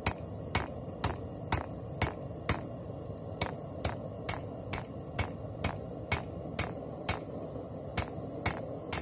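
Hand hammer striking a red-hot, forge-welded damascus billet of bandsaw blade and pallet strap steel on a 55 lb anvil, in steady, even blows a little over two a second. A steady low rush of background noise runs underneath.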